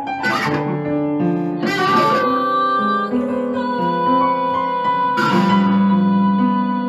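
Music: guitar played through effects, strummed three times, its chords ringing on with long, held, overlapping notes.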